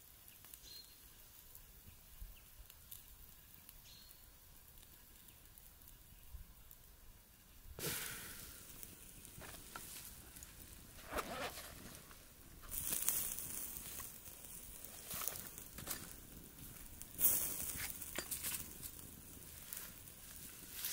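Faint quiet stretch with a few soft ticks, then, from about eight seconds in, repeated rustling of dry leaves, fabric and a pack as camping gear is handled, with several sharp clicks and knocks, the sharpest about three-quarters of the way through.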